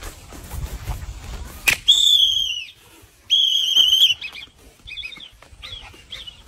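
A whistle blown in two long, loud blasts about a second apart, the second slightly warbling, with a sharp snap just before the first. A few short, fainter chirping tones follow.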